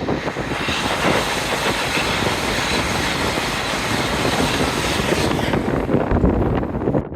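Train passing close by at speed: a loud rush of wheel and air noise that builds in the first second, holds steady, and loses its hiss near the end before cutting off suddenly.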